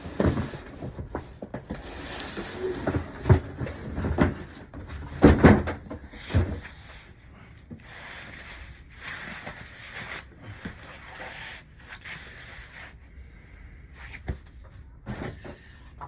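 Handling and unpacking noise as a large car amplifier is taken out of its packaging: a run of loud knocks and bumps in the first seven seconds, then softer rustling and a few clicks.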